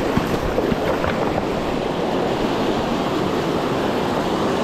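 Fast creek water rushing steadily, the stream running high with runoff.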